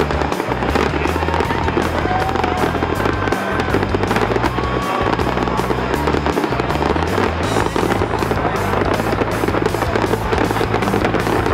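Music with a steady beat, with fireworks bursting and crackling in the sky beneath it.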